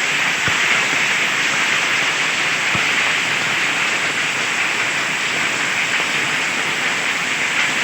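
Hailstorm: hailstones falling and striking surfaces in a dense, steady hiss.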